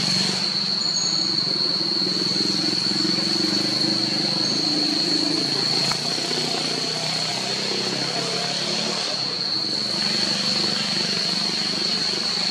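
Steady forest ambience: a continuous high-pitched insect drone over a low, steady rumble like distant engines.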